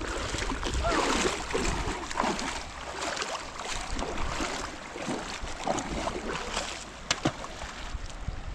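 River water rushing and splashing, with gurgling swirls, and two sharp clicks about seven seconds in.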